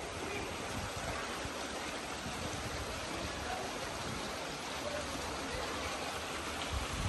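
Steady rushing of running water, a continuous even wash of noise with no breaks.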